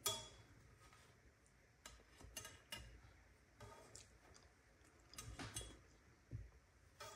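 Near silence, broken by a scattering of faint taps and clicks as small open sandwiches are slid off a knife blade onto a porcelain platter.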